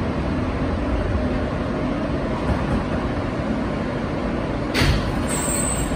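Subway car rolling along a station platform and braking to a stop, a steady rumble, with a short sharp burst of air hiss about five seconds in as it halts.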